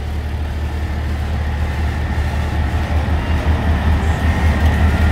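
Scania race truck's diesel engine running at low revs as the truck rolls slowly forward, a deep rumble that throbs and grows a little louder as it comes closer.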